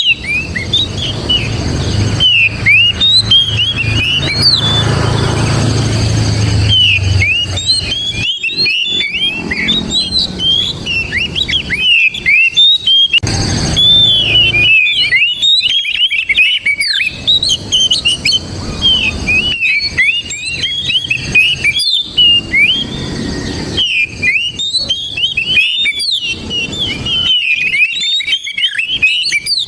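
Oriental magpie-robin (kacer) singing loudly in fast runs of varied whistled notes, in bouts broken by short pauses. A low hum underlies the first several seconds.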